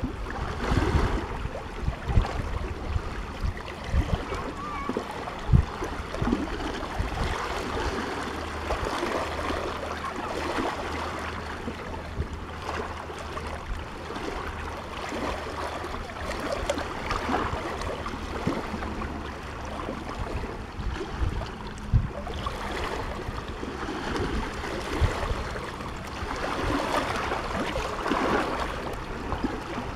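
Small sea waves lapping and splashing against shoreline rocks, a steady wash of water with a few low thumps now and then.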